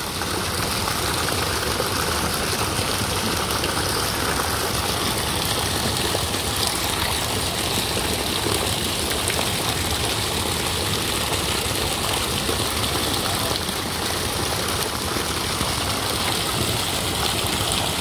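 Warm sulphur-spring water gushing steadily out of the open end of a rusty metal pipe, a full, even rush of pouring water.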